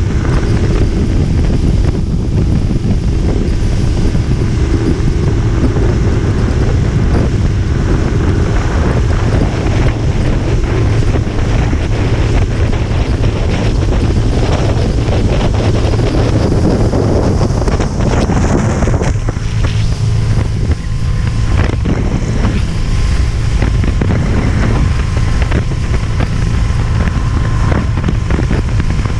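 A rigid inflatable motorboat running at speed: a steady engine drone under wind buffeting the microphone and the rush of water from the hull and wake. The rushing noise thins somewhat about two-thirds of the way in.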